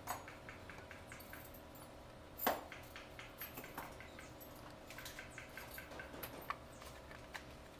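Light clicks and taps of parts being handled on a truck diesel engine's cylinder head, with one louder knock about two and a half seconds in.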